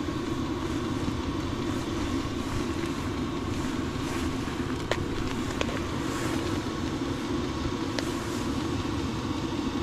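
Steady hum and roar of a tent heater running without a break, with a few faint ticks over it.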